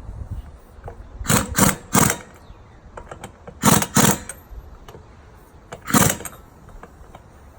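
Six short, loud bursts of a power tool in three groups, as bolts are tightened in a star pattern.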